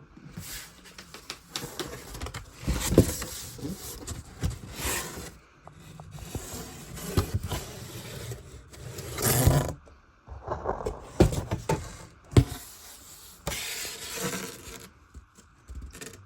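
Fireworks packages being handled and moved about: irregular scraping and rustling with a few sharp knocks.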